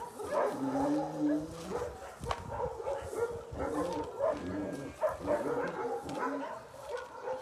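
Several dogs barking on and off, their calls overlapping.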